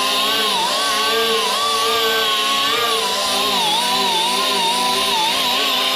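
Die grinder spinning a Scotch-Brite wheel against an aluminum hopper door, its high whine wavering up and down in pitch as the wheel is pressed on and eased off the metal.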